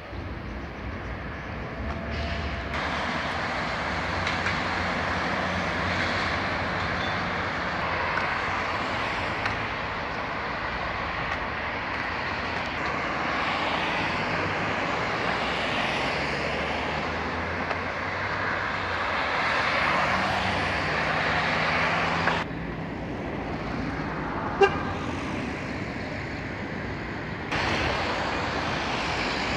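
City road traffic: a steady rush of car engine and tyre noise with a low engine hum. It drops suddenly about three-quarters of the way through, with a single sharp click, and comes back near the end.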